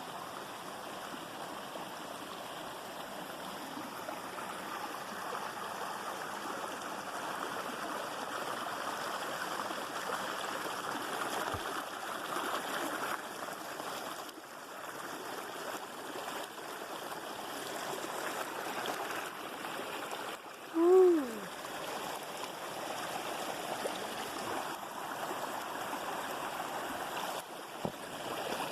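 Mountain creek running steadily over rocks. About two-thirds of the way through, one brief, louder pitched sound drops in pitch.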